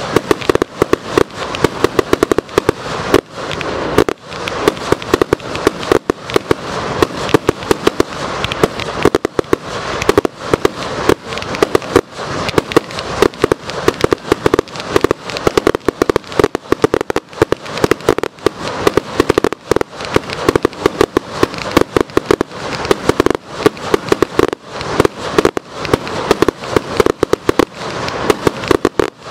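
Fireworks going off in a rapid, unbroken run of sharp bangs and crackles, several a second.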